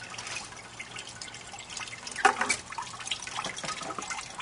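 Petite Sirah wine trickling and dripping from a cider press into a bucket as the fermented grapes are gently pressed. A brief louder sound comes about two seconds in.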